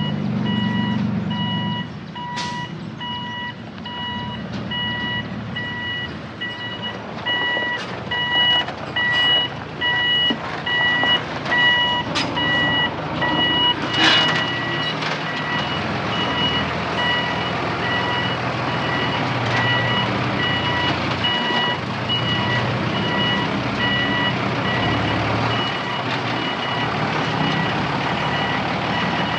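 A heavy machine's reversing alarm beeping in a steady repeating rhythm over a diesel engine running, with a few sharp clanks about 2, 8, 12 and 14 seconds in.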